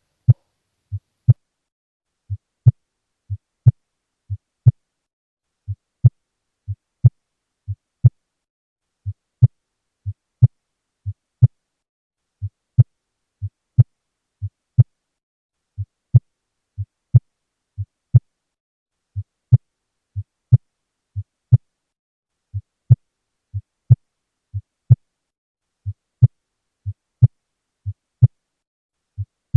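Heart sounds heard by auscultation: a steady lub-dub about once a second, each first heart sound (S1) much softer than the second (S2). This is the pattern of a soft first heart sound.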